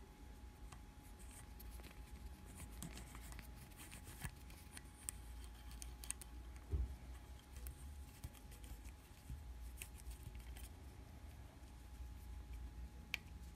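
Faint small clicks and scratches of a hex key turning a screw through a plastic cable clamp into an aluminium block held in a vise, over a steady low hum, with a soft thump about halfway through.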